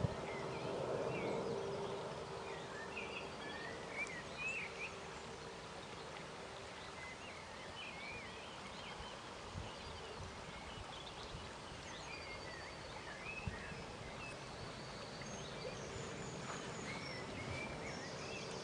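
River water flowing steadily, with small birds chirping and calling throughout. A faint steady hum sits under it at the start and again near the end.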